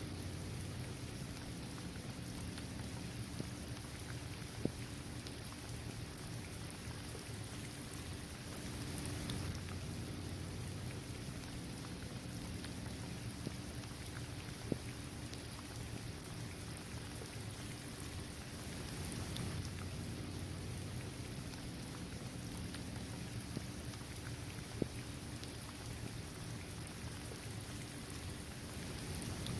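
Steady rain falling on a hard outdoor court, trees and grass, an even patter with a low rumble beneath. Three sharp single drop ticks stand out, about ten seconds apart.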